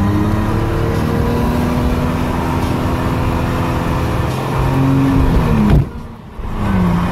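Car engine under hard acceleration, heard from inside the cabin, its pitch climbing steadily as the revs rise. About six seconds in the revs drop sharply with a brief dip in loudness, a gear change, and the engine then pulls and climbs again.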